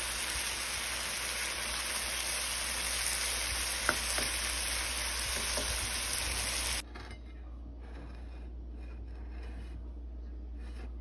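Shrimp and scallops sizzling in sauce in a pan while being stirred with a spatula, with a couple of light taps of the spatula on the pan. The sizzle cuts off suddenly about seven seconds in, leaving only faint room sound.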